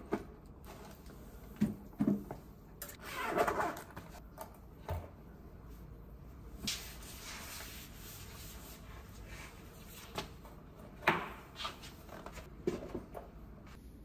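A door being opened and shut and someone stepping in. There are scattered knocks and clicks, the loudest about eleven seconds in, and a short rustling swell about three seconds in.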